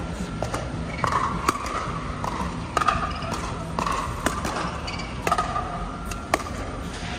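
Pickleball rally: about four sharp pops of paddles striking the plastic ball, a second or so apart, with sneakers squeaking on the hard court between shots.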